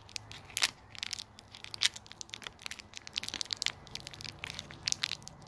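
Plastic candy wrapper crinkling and crackling in irregular bursts as fingers twist and pull at it, struggling to tear it open.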